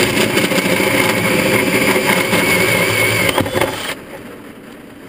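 Cordless drill running under load as it drills through the floor of a VW camper van, then stopping about three and a half seconds in.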